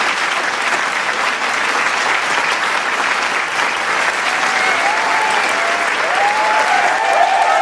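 Large crowd applauding steadily, with shouted cheers and whoops joining in over the second half and growing slightly louder near the end.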